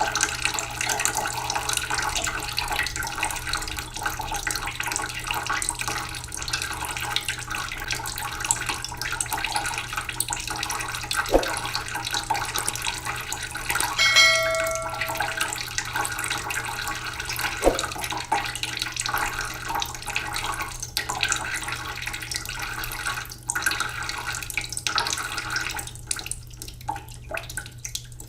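Waterfall: water falling and splashing in a steady rush. About halfway through comes one short pitched tone with overtones, and near the end the rush becomes quieter and thinner.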